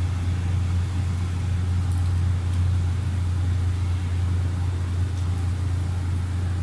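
Steady low hum of room background noise, with no other clear sound.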